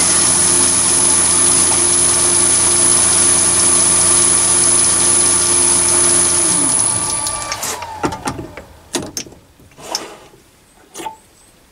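Chinese mini lathe running steadily with a high whine, its chuck turning a brass workpiece while a tailstock-held drill bit feeds into it. About six and a half seconds in the motor is switched off and the lathe winds down, falling in pitch. A few sharp clicks and knocks follow.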